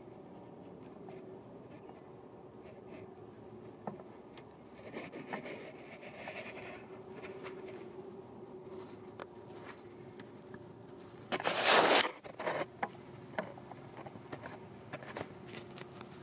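Faint steady buzz of a flying insect. About eleven seconds in, a loud, brief rustling scrape as camouflage clothing rubs against the camera when the hunter shifts, with a few lighter rubs and clicks after it.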